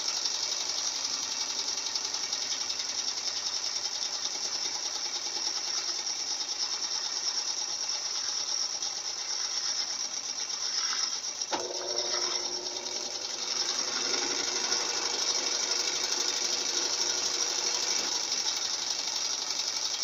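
Consul Maré CWL75 7.5 kg top-loading washing machine in its spin cycle: the basket spinning at speed, a steady mechanical whirring with a light rattle. A single sharp click comes about halfway through.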